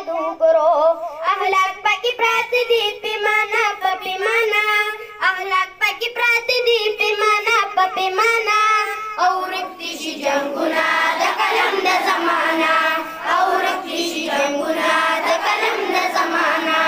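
Schoolboys singing a tarana, a school anthem. About nine seconds in the singing becomes fuller and denser, like many voices singing together.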